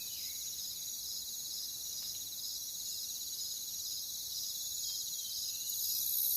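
Steady, high-pitched insect chorus, a continuous rapid pulsing trill, with a few faint falling calls near the start and near the end.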